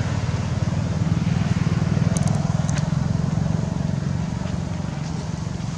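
Steady low motor-vehicle engine rumble that slowly fades, with a few faint high clicks about two seconds in.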